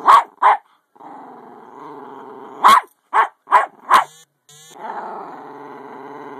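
Jack Russell terrier play-growling with a continuous low rumble, broken by six sharp barks: two right at the start and four in quick succession around the middle.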